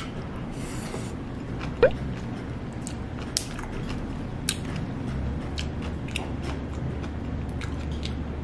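Close-miked chewing and biting of spicy stir-fried pork and rice, with scattered clicks of wooden chopsticks on a plastic lunchbox tray over a steady low hum. A sharp, short rising squeak comes about two seconds in.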